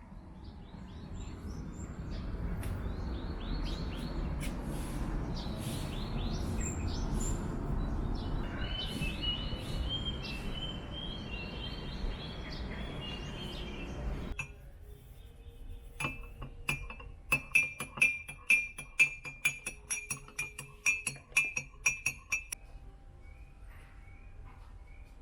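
A steady rushing noise, with a thin rising tone in its second half, cuts off sharply about halfway through. Then a metal spoon clinks quickly against a glass, about three strikes a second for some six seconds, as when stirring a drink.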